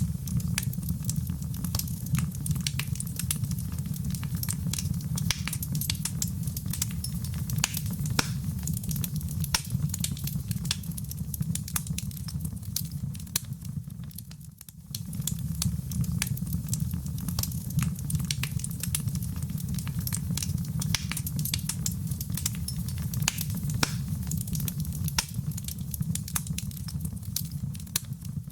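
Wood fire crackling, with many sharp pops and snaps over a steady low rumble of flame. It dips briefly about halfway through, then carries on.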